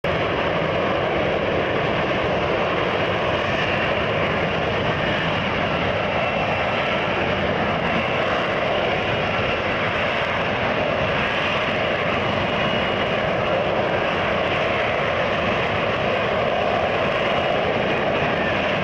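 Aircraft engine noise, steady and unchanging in level, with no rise or fall of a passing flyby.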